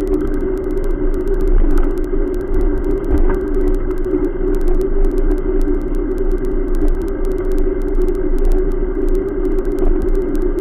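Steady rumbling wind and riding noise on a camera carried on a moving bicycle, with road traffic running alongside and light irregular clicking.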